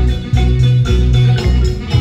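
Live Guatemalan marimba band playing dance music, with a heavy bass line moving about every half second under bright struck notes.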